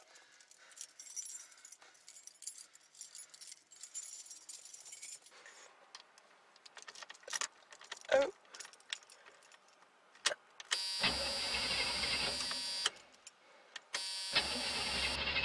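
Car keys jangling as a key is worked into the ignition, then the starter cranks the engine for about two seconds, stops, and cranks again near the end.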